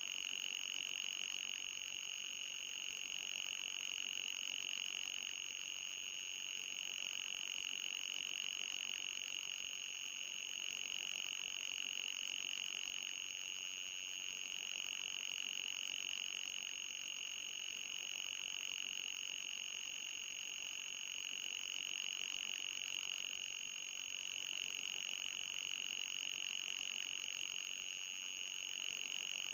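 Anti-mosquito repellent sound effect: a steady, high-pitched electronic whine, audible rather than ultrasonic, with a fainter, higher tone above it. It swells and fades gently every few seconds.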